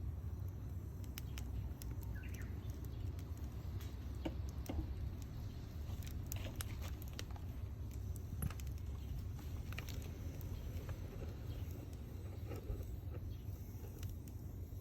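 Wood fire crackling: scattered sharp pops and snaps at irregular intervals over a low steady rumble.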